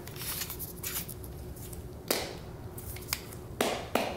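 Sharp metallic clicks and scrapes of AAC Ti-Rant 9 suppressor parts being handled and threaded together by hand, with a strong click about two seconds in and a few more near the end. The part is not screwing in all the way.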